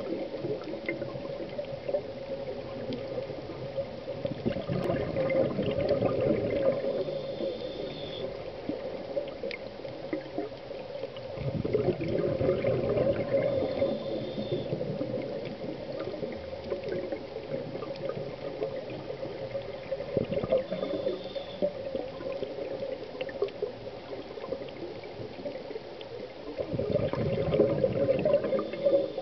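Scuba breathing heard underwater: bubbles gurgling out of a regulator on each exhalation, in four louder surges a few seconds long and roughly seven to eight seconds apart, with quieter stretches of inhalation between them.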